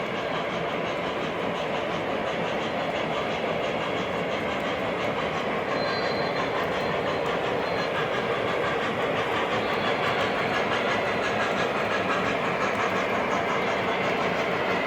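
O gauge model train running on the layout's track: a steady, continuous rolling noise of wheels and motor that grows slightly louder about halfway through.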